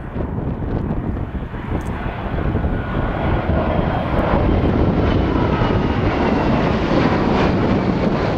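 Two Lockheed P-38 Lightnings, each with twin Allison V-12 piston engines, running in a formation flyby. The engine drone grows louder over the first few seconds as they close in, then holds steady.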